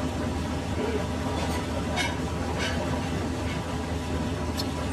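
Metal lathe running with a steady low mechanical hum, with a few light metallic clicks as the tool post and slide are worked.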